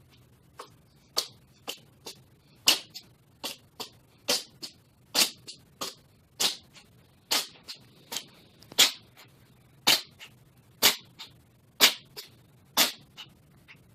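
Tabby cat in a sneezing fit: a run of sharp sneezes, about a dozen loud ones roughly a second apart with fainter ones in between. The uploader puts the fit down to allergies.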